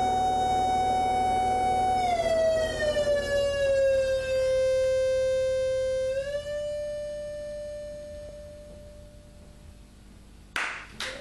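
Live electronic ambient music ending on a sustained drone tone with many overtones. The tone slides down in pitch about two seconds in, settles, rises slightly around six seconds, then fades away. Applause breaks out near the end.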